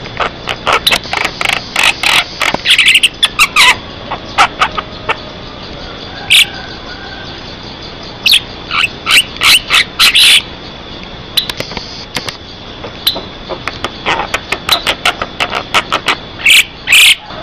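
Javan myna in full song: a rapid, loud run of short sharp chattering notes and whistles, coming in bursts with brief pauses between them.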